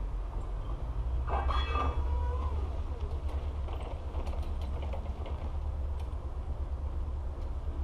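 A cat meowing once, briefly, about a second and a half in, its pitch falling at the end, over a steady low rumble.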